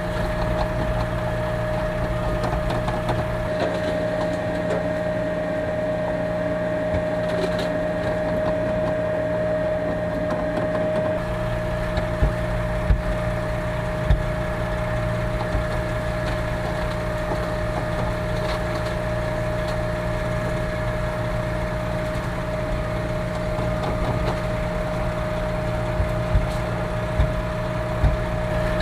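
Concrete mixer truck's diesel engine running steadily with a high steady hum while the drum discharges concrete. There is a scraping rush underneath and a few sharp knocks later on.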